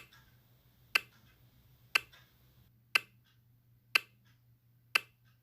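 Clock ticking, one sharp tick every second, used as a countdown while the answer is awaited; a faint low hum lies underneath.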